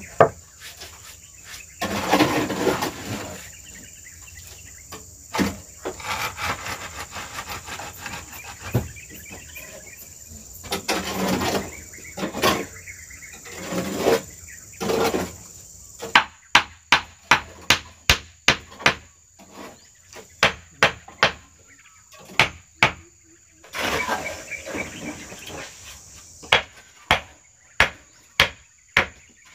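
Hammer blows, sharp and regular at about two a second, coming in runs from about halfway through and again near the end, over a steady high insect drone. The first half holds irregular scuffing and knocking.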